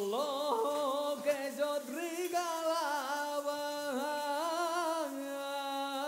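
A solo voice singing a slow folk-style melody in long, ornamented held notes, the pitch sliding and wavering between them.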